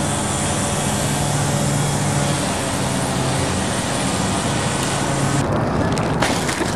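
Street traffic with a motor vehicle engine running steadily close by. About five and a half seconds in, the high hiss of the traffic drops away abruptly.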